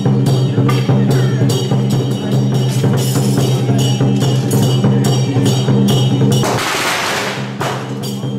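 Traditional Taiwanese temple percussion: drums, gongs and cymbals beating in a steady rhythm over a low ringing tone. Late on, a dense hiss about a second long covers the beat.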